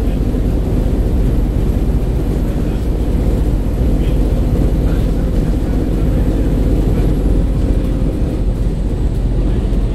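Steady low rumble of a single-deck bus's engine and running gear, heard from inside the passenger cabin.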